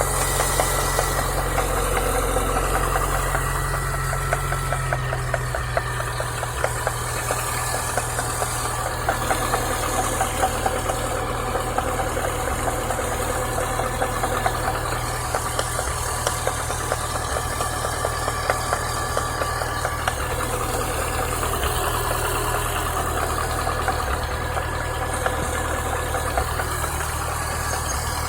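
Chevrolet Niva four-cylinder petrol engine idling, with a rapid, steady knock running through it; the idle steps down slightly about five seconds in. The knock comes from a worn water pump with play in its bearing.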